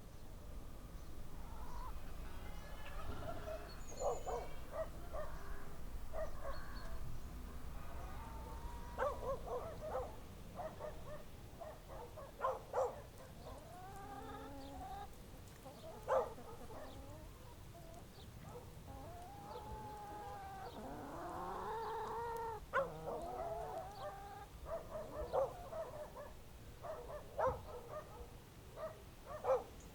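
Chickens clucking, a scatter of short calls throughout with a denser run of longer calls about two-thirds of the way in, over a low steady rumble that fades after the first third.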